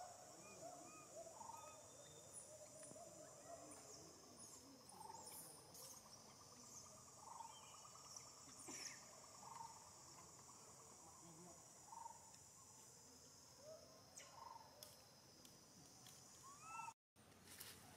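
Faint outdoor ambience: a steady high insect drone, with short rising-and-falling calls from some animal every couple of seconds.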